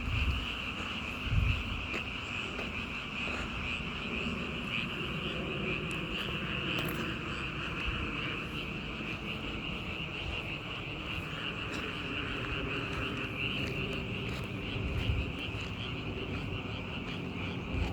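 A chorus of many frogs calling together, a dense, steady, unbroken din. A few short low thumps break in, the loudest about a second and a half in.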